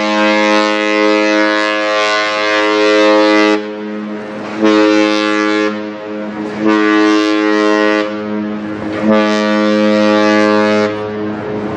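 Cruise ship's horn blowing: a long blast that stops about three and a half seconds in, then three shorter blasts with about a second between them.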